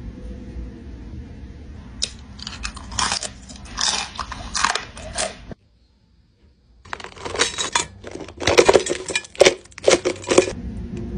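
Crisp crunching and chewing as fried whole baby crabs are bitten into. The crunching comes in two runs, with a sudden break of about a second and a half in the middle.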